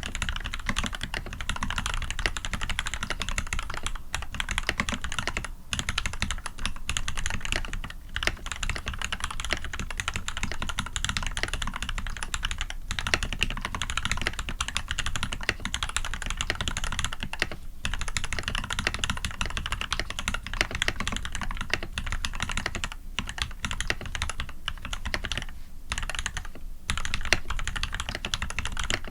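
Continuous fast typing on a custom Eo87 mechanical keyboard with lubed SP-Star White switches (Cherry top housings), brass plate and PBT keycaps, a dense run of key clacks broken by a few short pauses.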